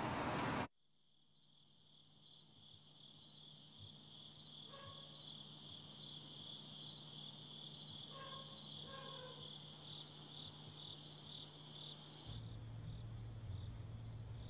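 Faint night chorus of crickets chirping in a fast, steady pulsing trill, fading in after a brief silence. A few faint short calls come in the middle, and a low steady hum joins near the end.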